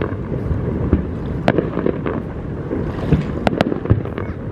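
Fireworks going off, with a sharp bang about a second and a half in and a quick cluster of cracks past the middle, over steady wind buffeting the microphone.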